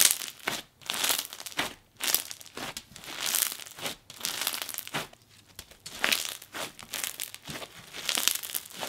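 Crunchy bingsu bead slime on a coated clear base being squeezed and pressed by hand, the packed beads giving crackling crunches and small pops in repeated bursts, one or two a second.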